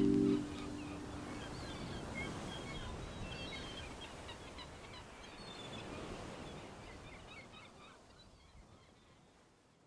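Outdoor ambience with many small birds chirping over a soft steady hiss, fading out gradually to near silence near the end. A held music chord dies away just after the start.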